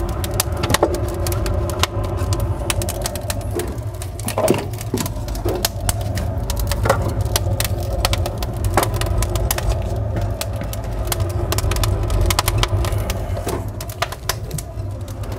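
Log fire crackling in the open firebox of a Solarfocus Therminator II log boiler, over a steady low rumble. A few heavier knocks come as split logs are laid on the fire.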